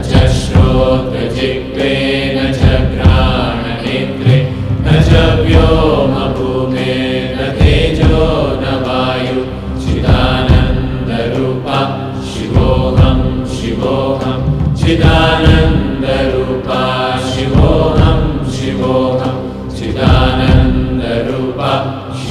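Devotional chanting sung over instrumental music.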